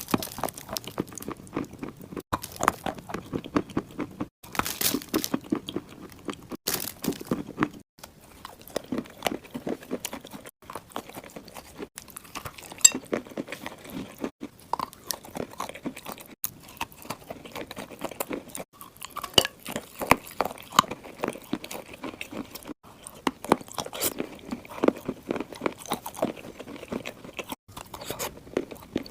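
Clay chunks being bitten and chewed: a dense run of crisp crunches and crackles, with a few brief pauses.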